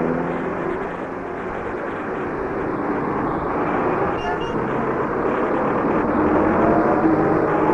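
Steady, dense rumbling noise, like distant traffic, with faint engine-like tones drifting in pitch through it and a brief higher chirp about four seconds in.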